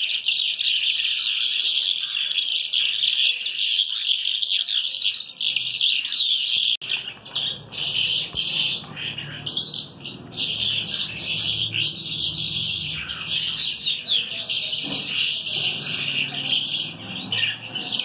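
Many caged birds chirping at once in a dense, continuous high chatter. About seven seconds in the sound changes abruptly, and a low rumble of room and handling noise joins the chirping.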